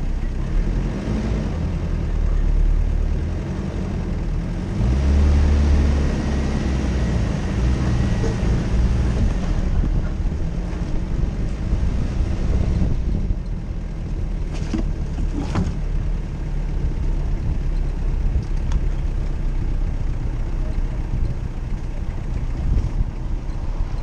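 Jeep Cherokee engine running as it drives off-road, pulling harder and louder about five seconds in before settling back.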